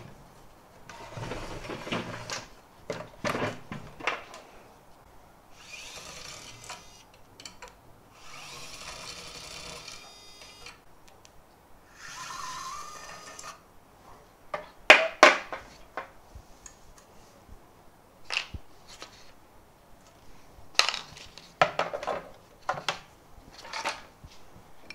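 ES121 electric screwdriver's small motor running in three short bursts of a second or two, backing screws out during disassembly, followed by a series of sharp clacks of hard parts being handled and set down.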